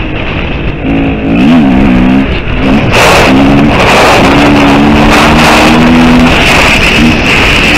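KTM 350 EXC-F single-cylinder four-stroke enduro engine under way, revs rising and falling with the throttle early on, then held steady at high revs for a couple of seconds. From about three seconds in, a loud rush of wind on the helmet microphone sits over the engine.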